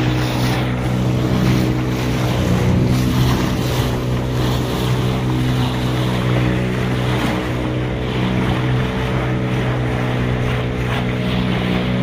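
A small motorboat's engine running at a steady speed, with a constant hum under the rush of water and wind.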